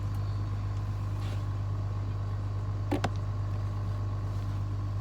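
Steady low mechanical hum with a faint steady tone above it, and a single sharp click about three seconds in.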